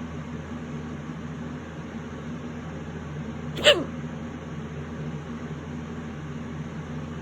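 A single loud, sharp hiccup about halfway through, one of a run of violent, persistent hiccups, over a steady low background hum.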